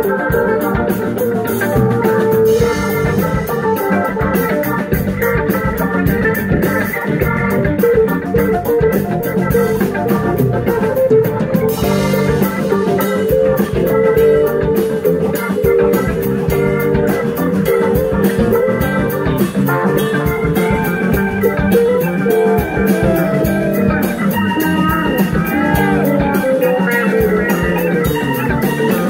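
Live rock band playing an instrumental break with no singing: electric guitars, bass, keyboards, drum kit and fiddle.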